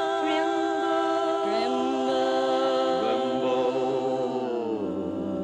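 A small group of voices singing a gospel hymn in close harmony without accompaniment, holding long notes, with lower parts joining partway through and all the voices stepping down together near the end.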